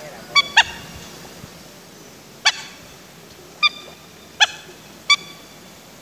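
Waterfowl honking: six short, high, clear calls, a quick pair and then single honks about a second apart.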